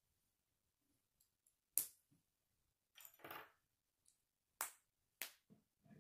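K'nex plastic rods and connectors clicking and snapping together in the hands: a handful of sharp plastic clicks, the loudest about two seconds in, with a short clatter of handled pieces midway.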